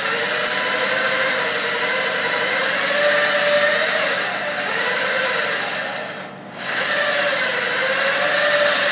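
Power drill boring a hole through metal, its motor pitch wavering as it loads up. It stops briefly about six seconds in, then starts drilling again.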